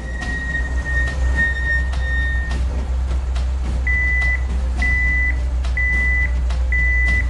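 Tow truck engine running with a steady low hum, with a high steady whine in the first couple of seconds. From about four seconds in, a reversing alarm beeps four times, roughly once a second.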